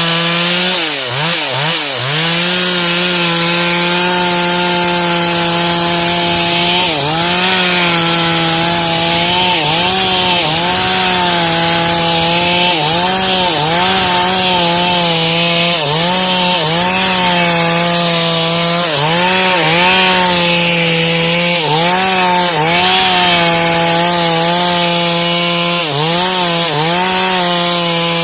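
STIHL MS 382 two-stroke chainsaw running at high revs while ripping through dry wood, its pitch dipping and recovering every second or two as the chain bites under load.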